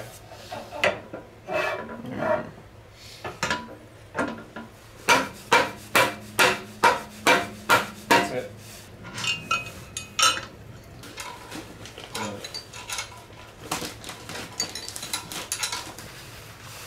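Hammer blows on a Ford 9-inch axle shaft flange, driving the axle into its housing: a few separate knocks, then a quick run of about eight evenly spaced strikes about five seconds in. Lighter metallic clinks and rattles of parts being handled follow.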